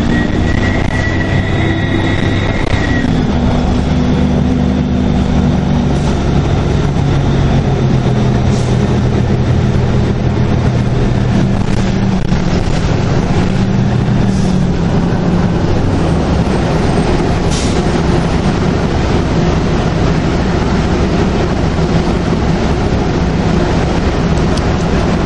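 A 2002 NABI 40LFW transit bus's turbocharged Detroit Diesel Series 50 engine running under way, with road noise. A high turbo whistle carries over the engine for the first three seconds or so and stops as the engine note drops. After that the engine drones steadily.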